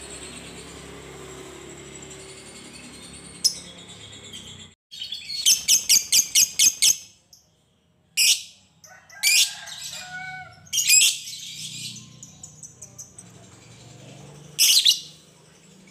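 Lovebird chirping with sharp, shrill calls. A quick run of about eight loud notes comes around the middle, followed by single loud calls every second or two.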